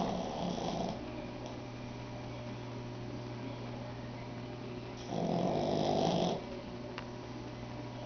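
A young pug snoring: one snore right at the start lasting about a second, then a longer, louder snore about five seconds in. A steady low hum runs underneath.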